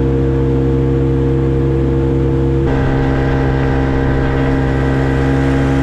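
Small tiller outboard motor running steadily at speed, pushing an aluminium dinghy along. Its tone shifts slightly about halfway through.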